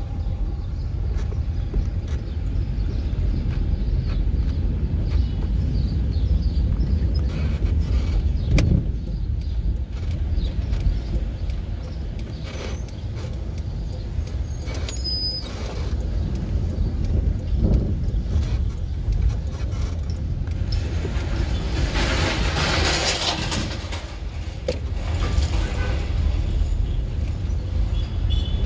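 Car cabin road noise while driving slowly: a steady low rumble of engine and tyres, with a few knocks, the sharpest about a third of the way in, and a louder rushing hiss for a couple of seconds about three-quarters of the way through.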